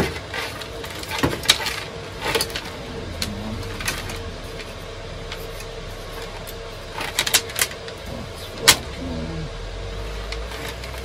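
Thin cable and plastic weather-station parts being handled on a wooden workbench: scattered clicks and knocks, one sharp knock about three-quarters of the way through. A steady hum of computer servers runs underneath.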